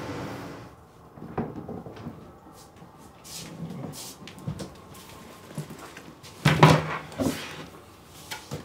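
Indoor handling sounds: scattered knocks and clicks of a door and objects being set down on a desk, loudest in a cluster about six and a half seconds in. A steady outdoor hiss cuts off under a second in.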